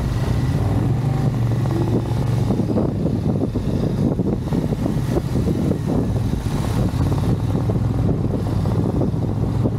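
Honda XL750 Transalp's parallel-twin engine running at a steady pace while riding, under a constant rush of wind and road noise.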